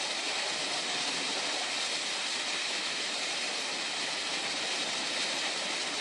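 The steady rush of water pouring down Multnomah Falls, a tall two-tier waterfall.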